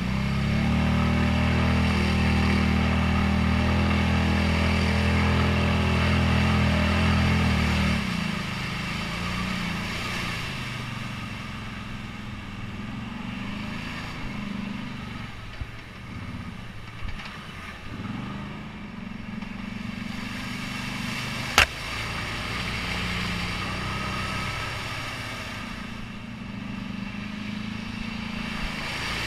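ATV engine held at steady high revs for about eight seconds while pushing through a mud hole, then easing to lower revs that rise and fall as it crawls over rock. A single sharp knock comes about two-thirds of the way through, and the revs climb again near the end.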